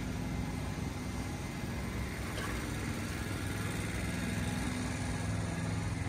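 City street traffic noise, steady, with a vehicle engine humming low.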